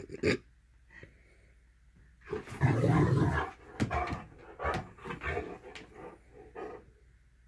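Great Dane vocalising at a cat: a loud, low drawn-out sound about two seconds in, followed by several shorter ones.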